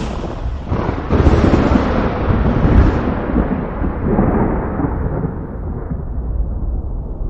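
A thunderclap: a sharp crack about a second in, then a long rolling rumble that slowly dies away, losing its high end as it goes.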